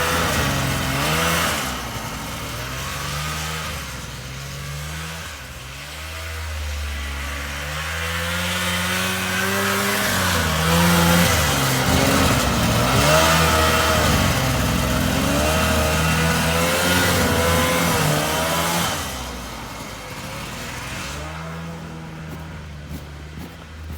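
Vintage 1970s John Deere snowmobile's two-stroke engine running under way, its pitch rising and falling as the throttle is worked. It is loudest in the middle and eases off near the end.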